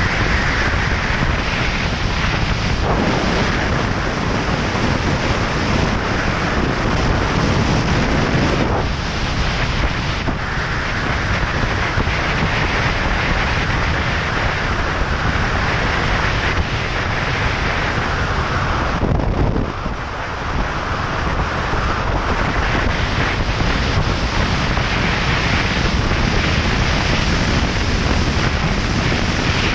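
Wind rushing over a motorcycle rider's camera microphone at road speed on a BMW R 1200 GS, a loud steady roar that drops briefly about twenty seconds in before building again.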